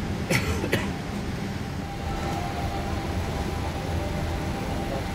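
Steady low rumble of a Boeing 787 cabin on the ground with its engines running, with a faint steady whine coming in about two seconds in. Two sharp knocks land in the first second.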